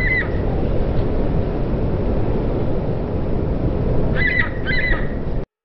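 Steady low rumble of a car driving slowly, with a bird calling: a pair of short calls at the start and another pair about four and a half seconds in. The sound cuts off abruptly near the end.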